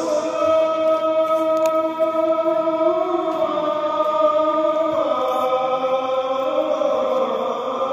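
Background music: a slow vocal chant with long held notes, shifting pitch every couple of seconds.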